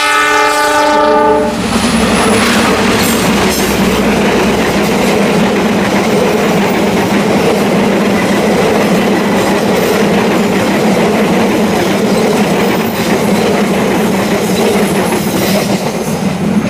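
A CC206 diesel-electric locomotive sounds its horn in a short blast at the start, then the passenger train's carriages roll past close by on a sharp curve: a steady loud rumble of wheels on rails with a clickety-clack.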